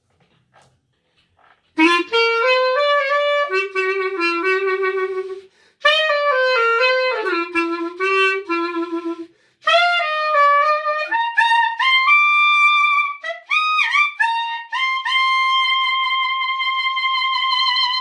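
A solo wind instrument plays a melody in three phrases. The first two are similar runs of short notes. The third climbs and ends on a long held high note.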